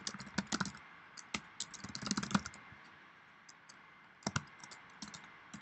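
Typing on a computer keyboard: quick runs of keystrokes, then a pause of a couple of seconds before a few more keys near the end.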